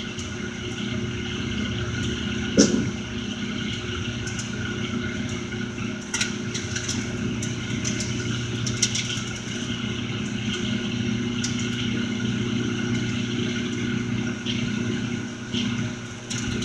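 A steady machine hum with a few fixed tones, like a household appliance or fan running, with one knock a few seconds in and a few light clicks later.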